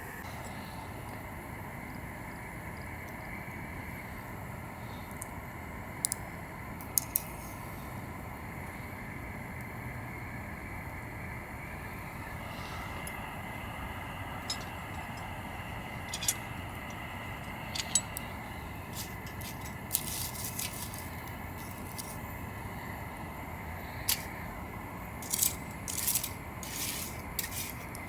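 Steady background hum with scattered sharp clicks and short scrapes of gear or utensils being handled, the clicks bunching together near the end.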